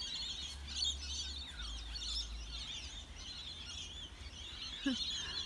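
A flock of parrots chattering, many high warbling calls overlapping without a break.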